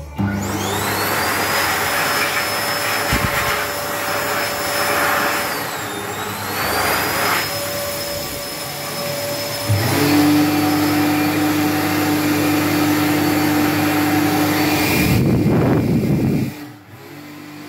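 Two electric hand dryers running. A WHWD Airforce starts first, its motor whine rising to a steady high pitch with a brief dip in pitch about six seconds in. About ten seconds in, an Eterna-branded Xinda GSQ250A joins with a lower, steady hum. The whine stops near the end, and the hum cuts off shortly after.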